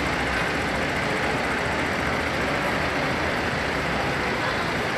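Steady rumble of idling vehicle engines, with no sudden sounds.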